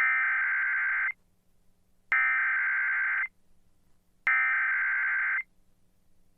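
NOAA Weather Radio Specific Area Message Encoding (SAME) header: three identical bursts of shrill two-tone digital data, each a little over a second long and about a second apart, marking the start of a new emergency alert.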